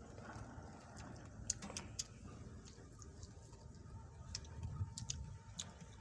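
Two people eating papaya salad by hand: quiet chewing and lip smacks with scattered sharp clicks as fingers pick through the salad on a metal tray.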